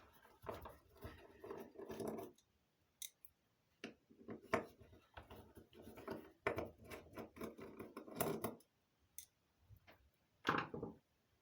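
Small screws being turned out with a screwdriver, in several clusters of short, irregular, grating turns.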